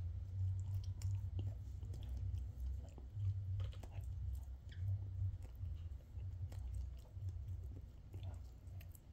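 A person chewing a mouthful of bread sandwich: a muffled, irregular low rumble of the jaw working, with a few faint clicks.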